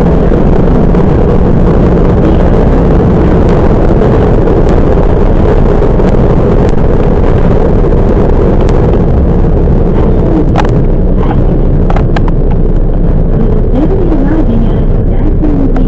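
Toyama Chiho Railway 10030 series electric train running along the line, a steady loud rumble of wheels on rail heard on board. There are a few sharp clicks in the second half and brief wavering whines near the end.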